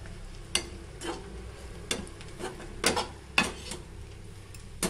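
A spatula stirring and scraping bread pieces in a metal kadai over the sizzle of frying, with about seven sharp, unevenly spaced taps and scrapes of metal on metal.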